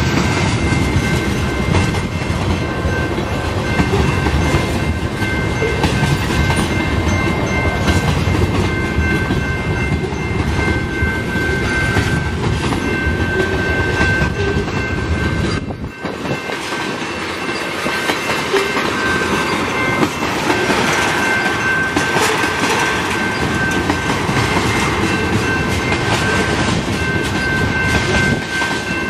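Freight train of loaded tank cars rolling past at a level crossing: the wheels rumble and clack over the rails and crossing, with the rumble easing for a moment about halfway through. A steady high ringing runs above it, typical of the crossing's warning bell.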